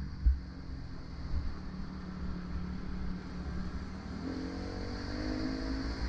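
Dirt bike engine running while riding a dirt trail, with a low thump just after the start. About four seconds in, the throttle opens and the engine note rises.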